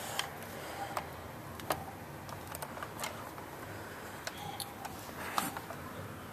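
Scattered light clicks and knocks from a handheld camera and blaster being handled and carried, over a faint steady background hiss.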